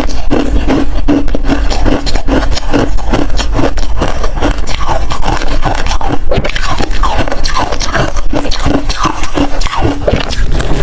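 Hard freezer ice being chewed, a loud, dense run of crisp crunches and cracks, several a second.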